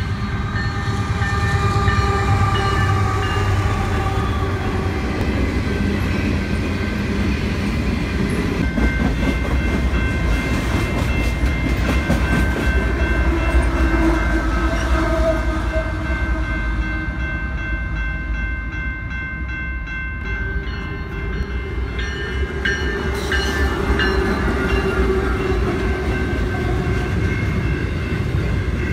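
Canadian Pacific diesel freight trains passing close by: locomotive engines running and the steady rumble and clatter of freight cars on the rails, with sustained horn tones over it.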